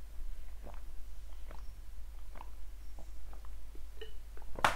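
A person gulping juice from a bottle, swallowing in a series of short gulps about once a second.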